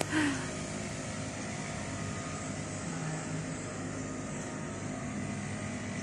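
Steady low mechanical hum under a hiss of background noise, with no distinct events.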